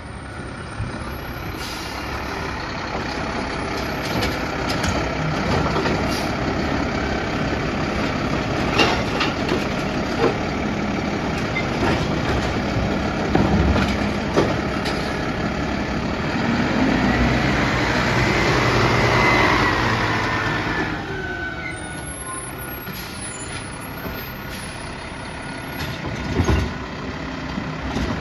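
Mack LR side-loader garbage truck's engine running as it pulls up and stops at the curb, with knocks and rattles from the body. A long hiss of air brakes rises and falls partway through. Then the truck idles while its side arm reaches out, and there is a thump near the end.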